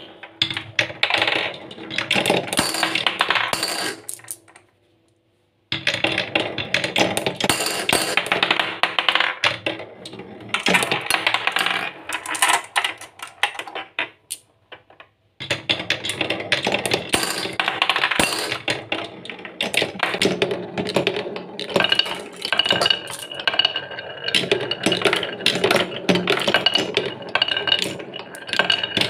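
Glass marbles rolling and clattering down a wooden marble run, a dense run of quick clicks and knocks as they bounce off the wooden pegs and track. The clatter breaks off twice into about a second of silence.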